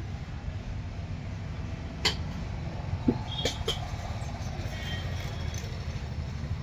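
Steady low rumble of street traffic, with a few short, sharp clicks: a single one about two seconds in and three close together between three and four seconds in.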